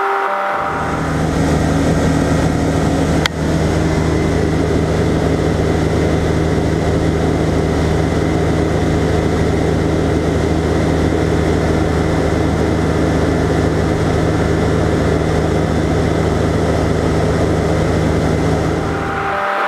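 Single-engine light aircraft's piston engine and propeller droning steadily in cruise flight, with an even rush of air over it. A single short click a little over three seconds in.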